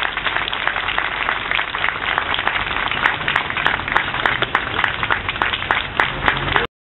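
Outdoor audience applauding, a dense steady patter of many hands clapping that cuts off suddenly near the end.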